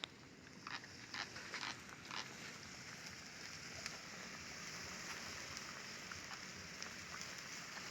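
Duck cooking in a pan: a faint, steady sizzle with a few soft crackles in the first two seconds.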